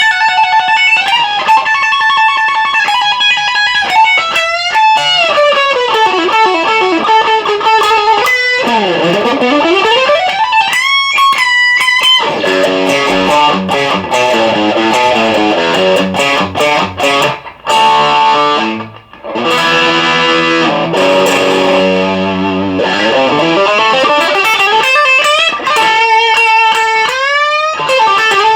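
ESP M-3 electric guitar through a Marshall DSL1 tube amp, played lead: held notes with bends, a deep pitch swoop down and back up about nine seconds in, and fast runs in the middle.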